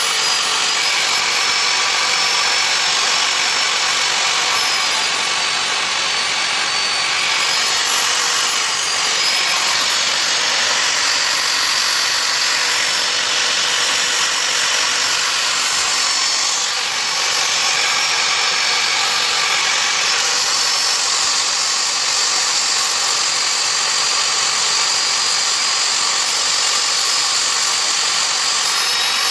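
Bare vacuum cleaner brushed motor, just repaired and its carbon brushes adjusted, running at high speed with a steady whine whose pitch wavers slightly about a quarter of the way in.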